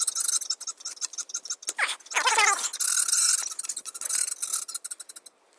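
Clicking, scraping handling noise of a black hose being worked at on a barbed pipe nipple, over a steady hiss, with a couple of short squawking poultry calls around two seconds in.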